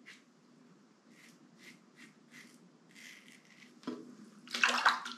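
Closed-comb safety razor strokes scraping through lathered stubble, heard as short faint scratches about every half second. Near the end comes a knock, then a louder wet swish.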